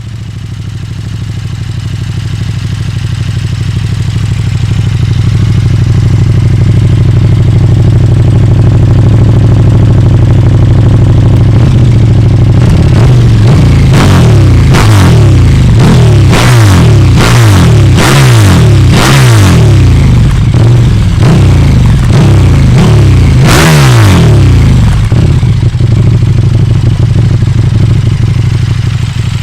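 KTM 1290 Super Duke R's 1301 cc V-twin through an aftermarket exhaust, idling steadily, then blipped up and down about eight times in quick succession from about twelve seconds in, before settling back to idle.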